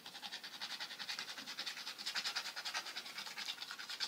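A coin scratching the coating off a scratch card, in rapid, even back-and-forth strokes, several a second.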